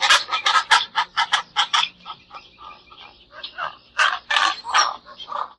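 Pelican calls: a quick run of short calls, about five or six a second, dying down in the middle and picking up again near the end.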